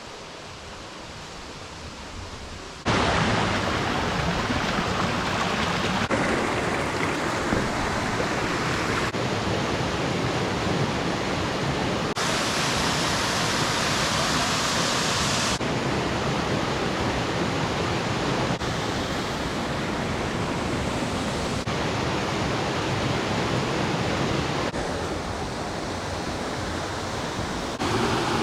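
Waterfall rushing, a steady roar of falling water that is quieter for the first few seconds, then jumps louder and changes tone abruptly every few seconds.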